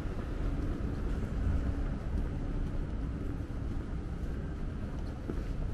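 Outdoor city ambience: a steady low rumble with a faint, even hum over it.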